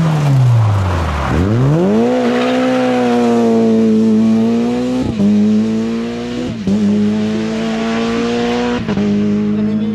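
Rally car engine falling in pitch as the car slows, then revving hard as it accelerates away, with three gear changes heard as short sudden dips in pitch.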